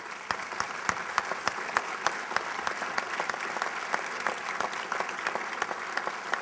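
Audience applauding: many hands clapping together, with single sharp claps standing out from the rest.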